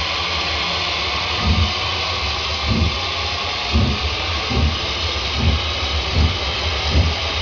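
OO gauge model tank locomotive running on the layout track: a steady hiss with a low thump about once a second.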